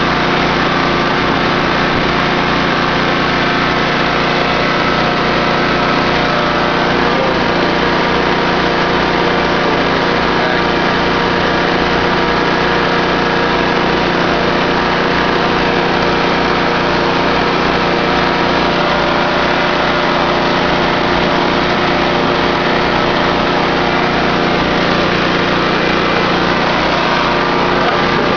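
Engine-driven generator set with a Harbor Freight generator head running steadily under load, powering an electric air compressor that runs along with it.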